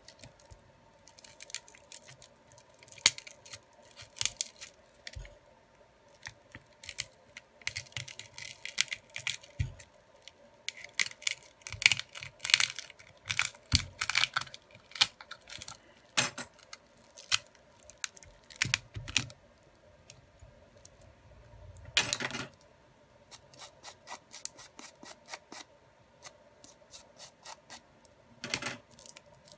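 Irregular clicks, scrapes and short tearing sounds as a thin metal wire tool is worked between a smartphone's display and its frame, cutting through the glue to free the old LCD. There is a longer, louder rasp about two-thirds of the way through and another near the end.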